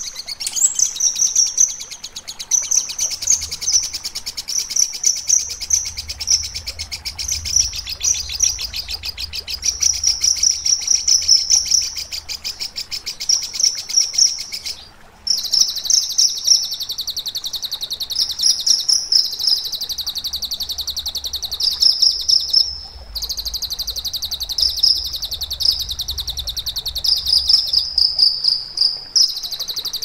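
Kinoi songbird singing a loud, fast, high-pitched chattering song. Clusters of louder ringing notes stand out, and the song breaks off twice briefly, about halfway through and again later.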